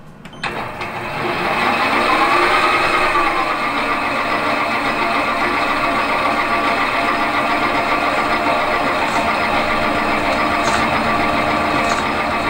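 Metal lathe motor starting about half a second in, with a rising whine as the spindle comes up to speed, then running steadily. Near the end, the parting tool begins cutting into the spinning brass bar to part off a bush.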